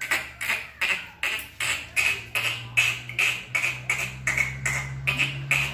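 A person imitating a cricket with the mouth: short, sharp chirps repeated evenly, about three a second.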